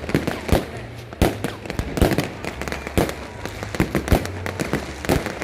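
Fireworks exploding in rapid, irregular succession, about two loud bangs a second with crackling between them.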